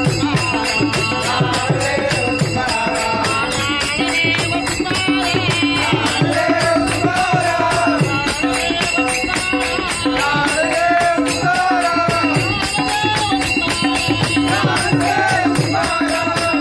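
Group of men singing a devotional bhajan in unison, with small brass hand cymbals (taal) struck in a fast, steady rhythm and hands clapping along.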